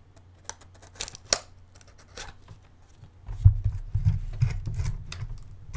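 A small cardboard mailing box being handled on a desk: a few sharp clicks and taps, then from about three seconds in a run of dull low thumps as it is pressed and pushed down against the desk.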